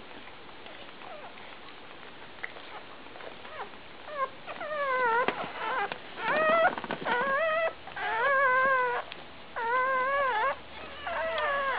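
Newborn Labrador puppy crying: a run of about six high, wavering cries, each under a second long, starting about four seconds in.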